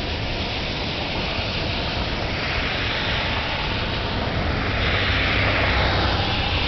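Thunderstorm noise: a steady rushing with a deep low rumble underneath, swelling a little about two seconds in and again about five seconds in.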